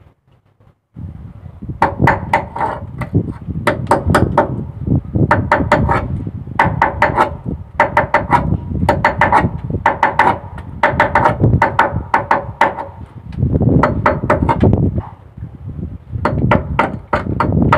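Hammer striking steel fittings in quick bursts of several blows, each with a metallic ring. It starts about two seconds in and keeps on in groups about a second apart.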